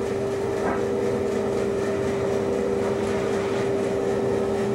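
A steady mechanical drone with a constant-pitched hum, unchanging throughout.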